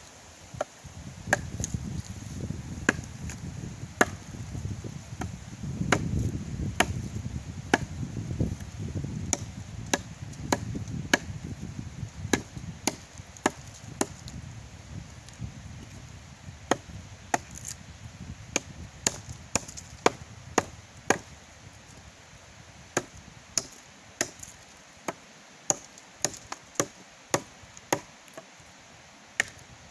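Wood being chopped with a heavy blade, strike after strike at an irregular pace that quickens to about two a second in the second half. A low rumble sits under the first half.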